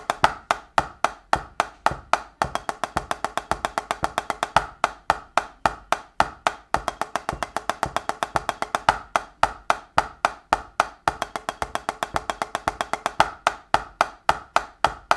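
Drumsticks playing fast, even alternating single strokes in a steady pulse: a snare drum singles exercise in groups of four and eight.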